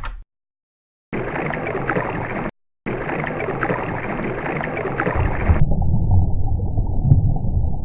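A gurgling, water-like noise played as an edited sound effect. It starts about a second in, breaks off briefly near the three-second mark, and about halfway through turns muffled and bass-heavy, with everything above the low range cut away.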